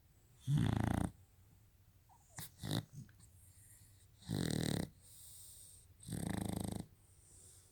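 A Shar-Pei snoring in its sleep: three rasping snores a few seconds apart, with a few short snuffles between the first two.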